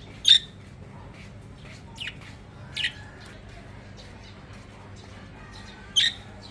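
Pet budgerigars giving short, sharp chirps and squawks: four separate calls, the loudest near the start and near the end.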